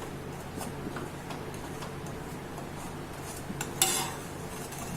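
A spoon ticking and clinking against a cooking pan of brown sugar syrup heating on the stove: a few light ticks, then one louder metallic clink nearly four seconds in, over a steady low hum.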